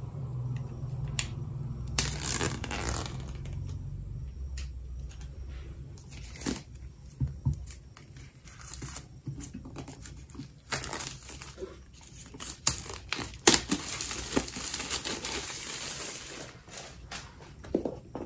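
Clear plastic shrink-wrap being torn and peeled off a cardboard iPad box, crinkling and crackling, with scattered sharp clicks and taps as the box is handled. The crinkling is busiest in the second half.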